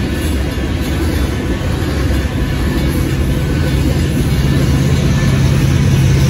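Freight train hopper cars rolling past with a steady rumble. From about halfway through, the low, steady drone of the Canadian Pacific SD70ACu distributed-power locomotive's diesel engine rises above it as the unit draws near.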